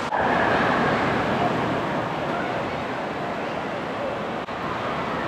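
Indoor water park din: a steady rush of water and splashing under the chatter and shouts of a crowd of swimmers.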